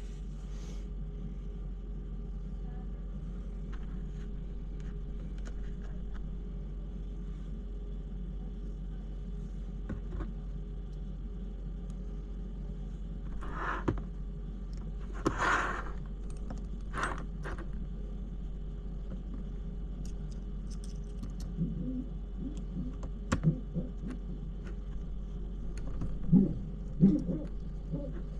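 Steady background hum with scattered light clicks, taps and brief rustles from small hand tools and plastic parts as screws are fitted into an RC crawler's chassis.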